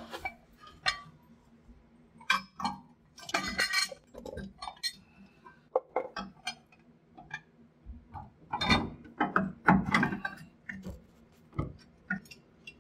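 Scattered metal clinks and knocks as the air spring's steel mounting brackets and hardware are handled and pushed into place against the rear axle and frame, with small clusters of taps about a third of the way in and again past the middle.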